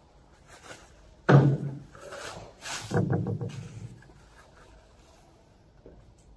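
A long metal bar knocked down onto a wooden pallet about a second in, then a couple of seconds of plastic wrapping crinkling and rustling as it is handled.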